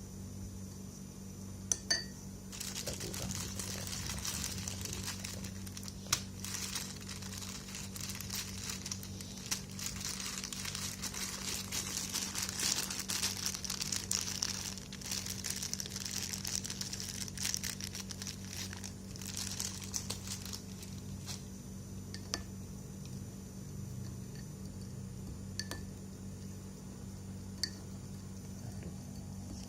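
Crinkling and rustling, like something crinkly being handled, for most of the stretch; it grows louder toward the middle and fades out a little past two-thirds of the way through. Under it runs a steady low hum, with a few isolated sharp clicks.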